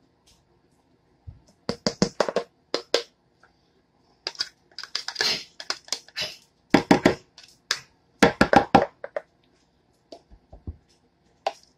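A kitchen utensil scraping and clicking against a container in several short bursts as mayonnaise is scooped out and measured.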